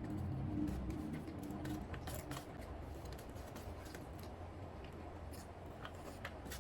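Close-up eating sounds of chicken biryani: irregular small wet clicks and smacks of chewing.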